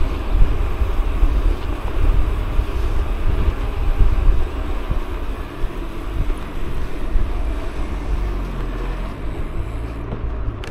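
Wind buffeting the microphone of a camera on a moving bicycle, a loud, gusting low rumble that eases a little near the end.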